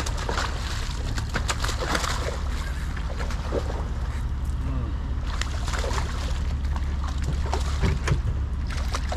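A small striped bass thrashing and splashing at the water's surface beside the boat as it is reeled in: a run of quick splashes and slaps over a steady low rumble.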